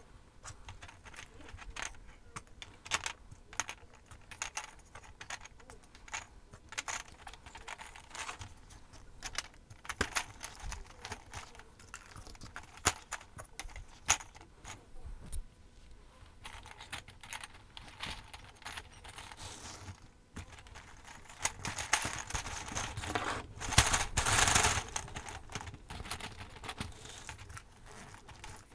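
Small Christmas ball ornaments clicking and clinking against a wire star frame and against each other as they are pushed in one at a time. A louder, denser rattle comes about 22 seconds in and lasts a few seconds.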